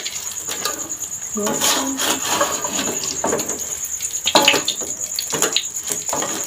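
A spatula scraping and knocking against a wok while a noodle omelette fries in oil, with a few sharp clinks about halfway through and near the end.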